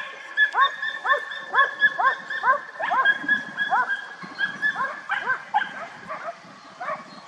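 Hunting dog barking in a rapid, even run of short barks, about three a second, growing a little fainter near the end.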